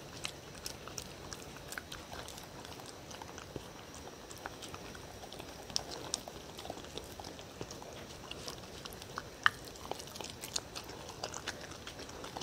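Dog eating noodles in black bean sauce from a wooden bowl: wet chewing with irregular small clicks, the sharpest about nine and a half seconds in.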